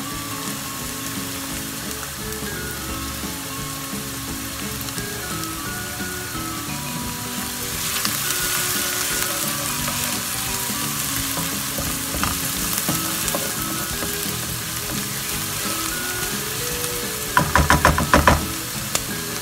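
Chopped onion, already translucent, and freshly added garlic sizzling in a frying pan as they are stirred with a wooden spoon. The sizzle grows louder about eight seconds in, and a quick run of knocks comes near the end.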